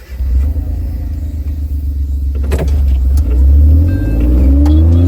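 Motor vehicle engine running under load with a heavy low rumble; its note rises near the end as it accelerates. A sharp knock about two and a half seconds in.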